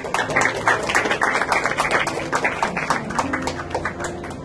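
A small group of people clapping by hand, dying away near the end.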